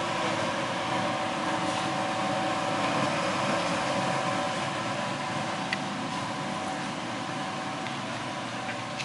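Steady mechanical hum with a faint steady whine, and a single light tick a little past the middle.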